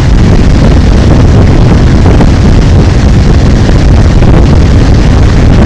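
Loud, steady wind rush buffeting the microphone of a motorcycle being ridden, with vehicle and road noise underneath.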